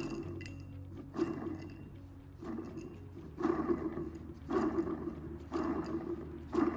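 Rough mechanical growling from a part on a high-mileage Daihatsu Hijet truck, in repeated bursts about once a second over a low steady hum: the abnormal noise being traced.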